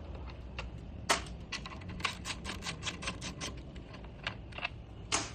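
Ratchet wrench clicking while backing out the bolts that hold the motorcycle's body control module cage: scattered clicks, then an even run of about six or seven clicks a second for a second and a half.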